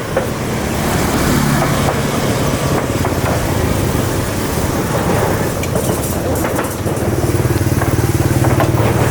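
A motor vehicle's engine running close by, a steady low hum that grows louder about seven seconds in.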